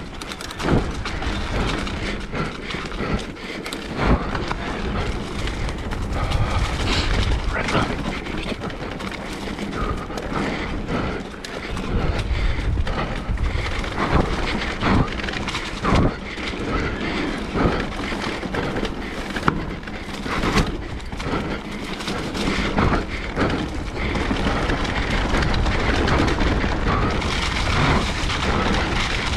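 Electric mountain bike rattling down a rough dirt trail, with many sharp knocks as the wheels hit roots and rocks, over a steady rushing noise.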